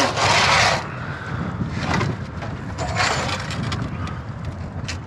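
Wind rushing on the microphone, loudest in the first second, with a few short knocks on the fibreglass skiff deck as a large black drum is handled and measured.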